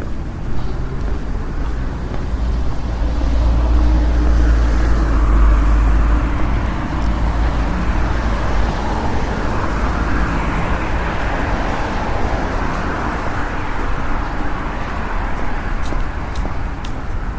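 City street traffic ambience: vehicles passing by, swelling with a heavy low rumble a few seconds in and again further on.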